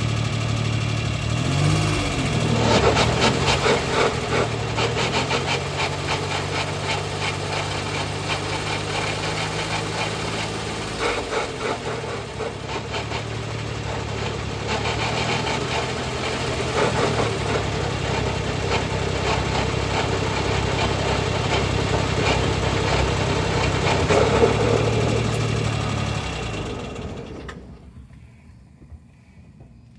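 Suzuki Jimny JA71 running, its engine note rising and falling a few times over a dense mechanical rattle and whine. The owner attributes the noise to the differential. The sound dies away near the end.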